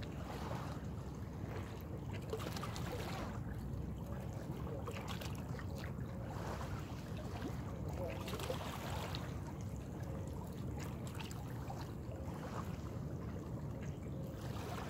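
Small waves washing against shoreline rocks in soft, uneven swells over a steady low rumble of wind on the microphone.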